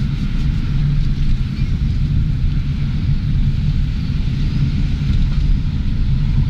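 Car on the move, heard from inside the cabin: a steady low rumble of engine and road noise.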